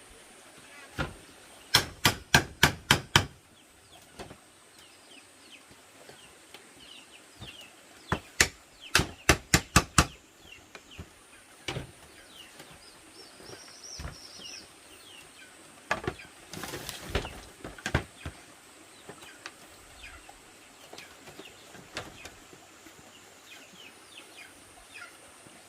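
Bamboo being struck with a hand tool: two quick runs of about six sharp blows each, roughly four a second, with scattered lighter knocks and a short scraping rustle about two-thirds through. Small birds chirp faintly over a steady high insect whine.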